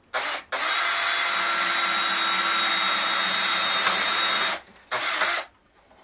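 Cordless drill drilling a vent hole through the metal lid of a paint can. A brief blip of the trigger comes first, then one steady run of about four seconds, then a short final burst about a second later.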